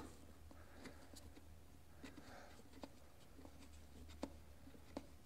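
Faint scattered clicks and light scraping of hands working at a dirt bike's plastic airbox to unscrew the air filter, with a click about once a second, the loudest about four seconds in.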